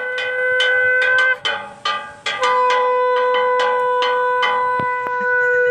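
Conch shell (shankha) blown for worship: a short blast, then about a second in a long steady blast held for several seconds. A small bell is rung rapidly alongside, about three strokes a second.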